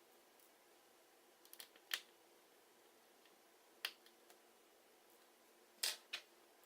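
Small sharp clicks and taps of a precision screwdriver and tiny metal parts being handled while the screws and shields over an iPhone 5's battery connector are removed. A quick little cluster comes about a second and a half in, a louder single click near two seconds, another near four, and a close pair near the end.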